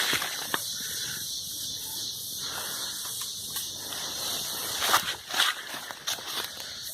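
Scattered footsteps and rustling of leaves and brush as someone moves through woodland undergrowth, with a few sharper knocks, over a steady high hiss.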